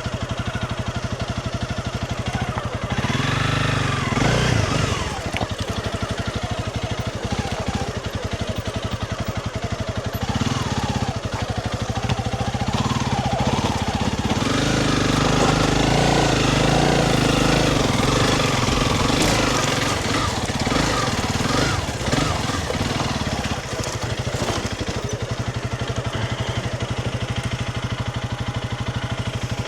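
Honda CRF300 Rally's single-cylinder engine, on its stock exhaust, running while the bike is ridden along a trail. The revs rise and fall, louder through the middle.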